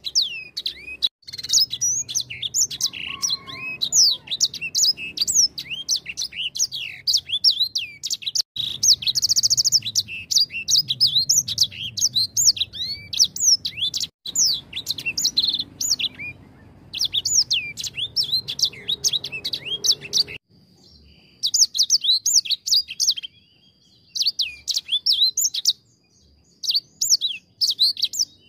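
Caged edel sanger, a small songbird, singing a fast, continuous song of high chirps and trills, with a couple of short breaks in the last third.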